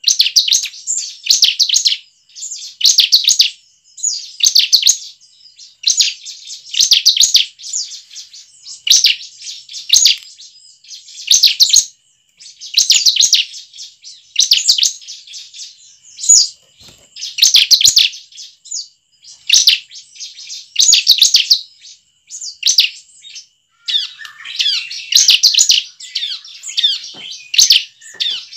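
Bar-winged prinia (ciblek) singing: short bursts of rapid, ticking high notes, repeated about every second and a half, with a longer, more varied phrase near the end.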